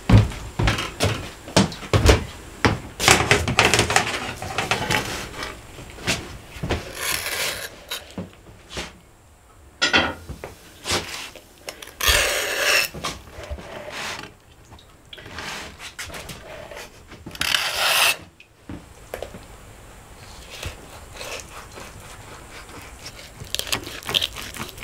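Metal skewers knocking and clattering against a metal tray, with several drawn-out scraping rasps as the skewers are pulled out of whole smoked chickens. Quieter knife-and-fork cutting follows near the end.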